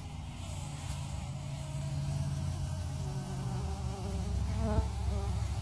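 Bumblebees buzzing at their dug-open nest, a low drone whose pitch drifts up and down as bees move about the disturbed colony, with a brief bump a little before the end.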